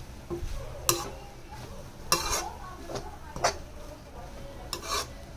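A metal spoon stirring and mixing cooked lemon rice in a metal pan, clinking and scraping against the pan about once a second.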